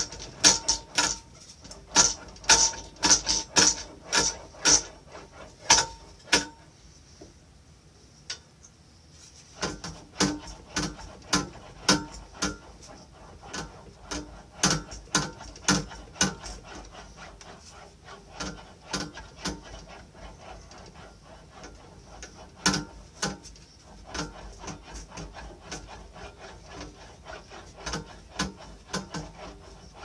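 Small English wheel rolling dents out of a painted sheet-metal panel that is pushed back and forth between the wheels, with a sharp clack at about every stroke, near two a second. The strokes stop for a few seconds about six seconds in, then start again, quieter.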